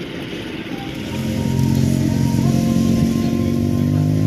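A vintage snowmobile engine running close by with a steady note. It grows louder about a second in and then holds, with a slight rise in pitch partway through.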